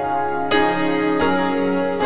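Instrumental film-score music: held chords, with new chords struck about half a second in and again just past a second.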